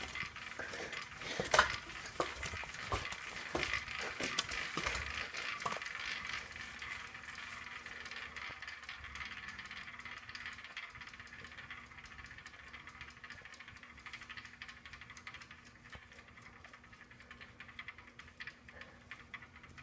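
Hampton Bay St. Vincent ceiling fan running with a steady airy whir. A scatter of light ticks and rattles comes in the first few seconds, and the whir slowly grows fainter.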